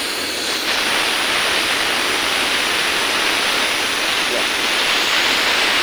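Steady, even hiss with no rhythm or distinct tone, stepping up slightly less than a second in.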